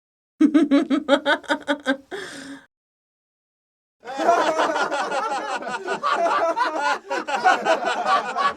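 A person laughing in a quick run of short "ha" bursts, ending in a breathy gasp. After about a second and a half of silence, a second, longer and denser stretch of laughter begins.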